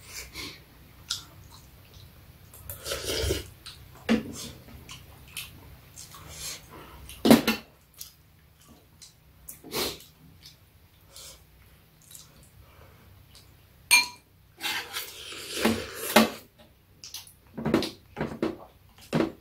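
Metal spoons and chopsticks clinking and scraping against ceramic bowls and a plastic container during a meal of soup and rice, in scattered irregular knocks, with eating sounds between them.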